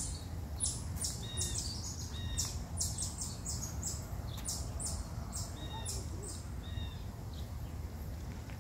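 Small birds chirping in quick, short high notes, over a steady low background noise.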